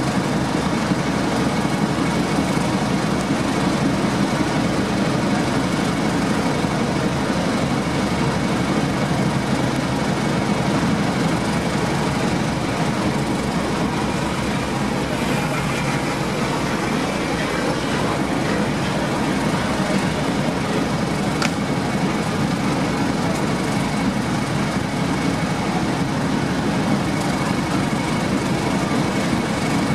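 Diesel locomotive's engines running steadily as it hauls a train of coaches past, with the continuous rumble of the train rolling on the rails.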